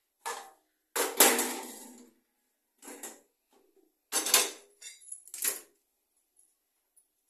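Steel kitchen utensils clanking against steel pans and plates: about five separate clatters, the loudest about a second in ringing out briefly before fading.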